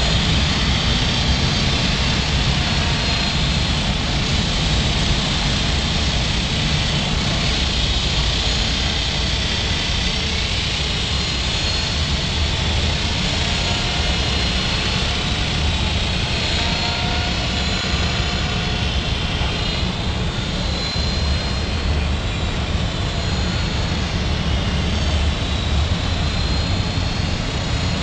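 Belt-driven fixed-pitch micro RC helicopter with a metal rotor head in flight: a steady whine with rotor buzz, the whine's pitch drifting up and down with throttle.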